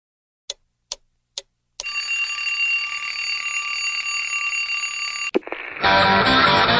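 Three short ticks, then a steady, high-pitched alarm ringing for about three and a half seconds, cut off by a click. Near the end, rock music with electric guitar starts.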